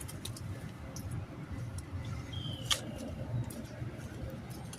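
Camera being carried and handled: a few light clicks and knocks over a steady low outdoor rumble, with one short squeak and a click about two and a half seconds in.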